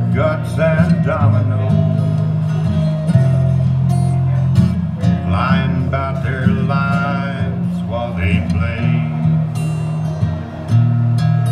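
Acoustic guitar played live, strummed with a moving bass line that changes note every second or so.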